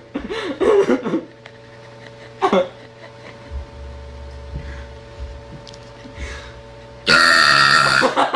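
A girl's loud, long burp lasting about a second, near the end; short vocal sounds come about half a second in.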